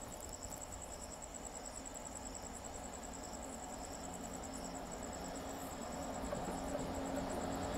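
Insects chirping in a fast, steady, high-pitched pulse, over a low rumble that grows a little louder near the end.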